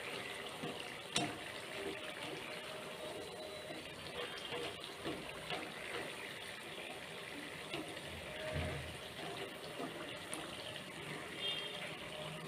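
Murukku deep-frying in hot oil in a steel kadai: the oil bubbling and sizzling steadily with small crackles, as a wire skimmer is moved through it. A sharp click about a second in.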